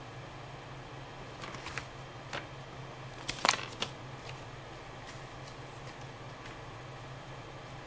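Steady low hum of room and electrical background noise, with a few short light clicks and taps, the loudest cluster about three and a half seconds in.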